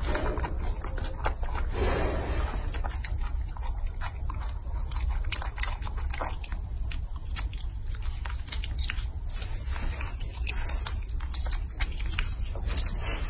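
Baby macaque biting and chewing a small fruit, giving many short, irregular mouth clicks and smacks over a steady low hum.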